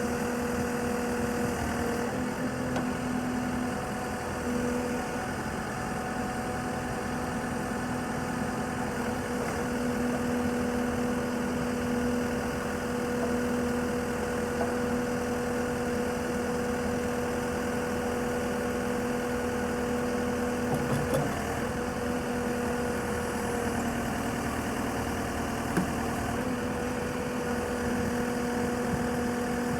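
The diesel engine of a JCB 3CX backhoe loader idling steadily at an even pitch, with a couple of brief light clunks over it.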